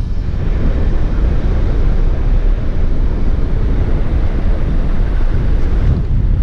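Helicopter flying past: a steady, loud low rumble, mixed with wind buffeting the microphone.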